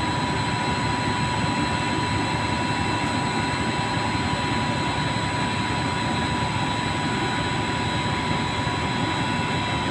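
TIG welding: a steady hiss from the arc and welding machine, with a constant high whine.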